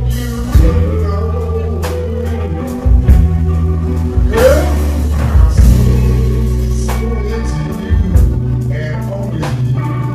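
Live electric blues band playing: an electric bass holding low notes under a drum kit's regular hits, with a lead line through the singer's microphone that slides up in pitch midway.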